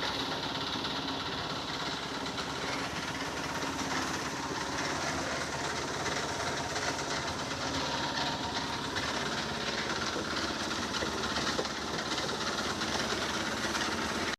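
Engine of a site concrete mixer running steadily while the concrete is being mixed.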